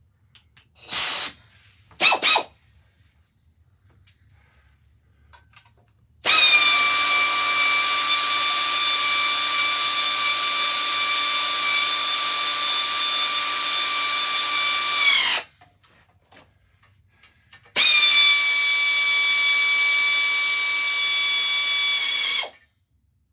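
Power tool motor blipped twice briefly, then run in two long steady stretches of about nine and five seconds, with a steady whine and hiss that sags slightly in pitch each time it is let off.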